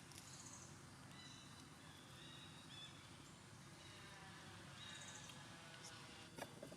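Faint, thin, high-pitched cries of a newborn monkey, drawn-out squeals in two spells, typical of an infant monkey crying from hunger. A short sharp click near the end.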